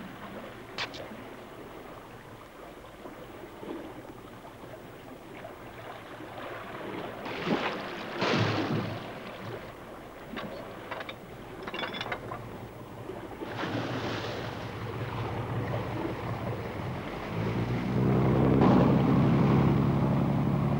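Sea water rushing and splashing around an open wooden whaleboat, with wind on the microphone and a few louder splashes. Near the end a low steady drone comes in and becomes the loudest sound.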